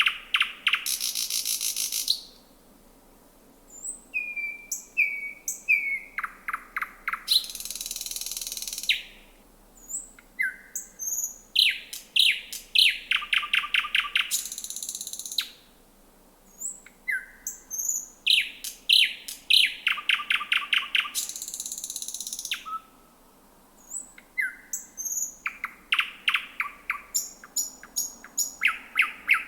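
Thrush nightingale singing: loud phrases of rapid repeated clicking notes and a harsh buzzy rattle, mixed with short whistles and rising notes. The phrases come about every six to seven seconds, with brief pauses between them.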